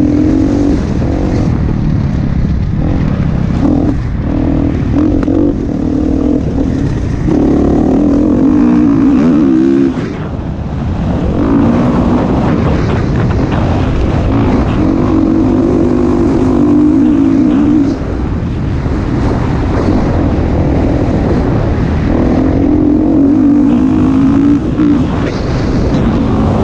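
Dirt bike engine running hard under throttle, heard from on board the bike as it laps a motocross track. The engine note holds in stretches and drops away briefly twice, about 10 and 18 seconds in.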